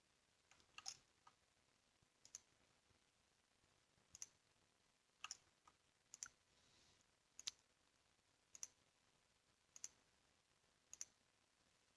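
Faint computer mouse clicks, about one a second, a few in quick pairs, against near silence.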